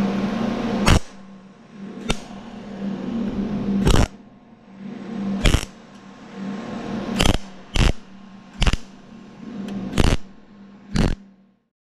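MIG welder tack-welding a sheet-metal truck inner fender: about nine short, sharp bursts of arc crackle a second or so apart, over a steady low hum, stopping abruptly near the end.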